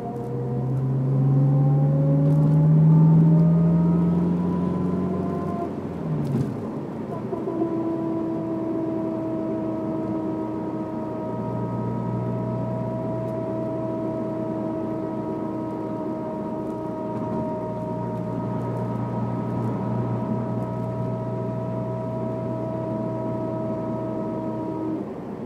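Honda S2000 driving under throttle: the engine note and a whine rise in pitch for about six seconds, drop, then hold steady with a high, even whine above the engine. The whine comes only on the gas, and the owner is unsure whether it is the differential or the transmission.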